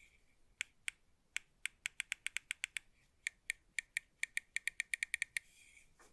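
Gaming mouse buttons clicked over and over: about thirty sharp clicks in quick runs, with a brief pause around three seconds in.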